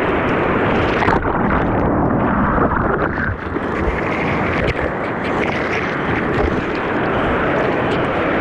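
Ocean whitewater rushing and churning around a surfer paddling out through a set of breaking waves, heard close to the water, muffled, with a few sharp knocks.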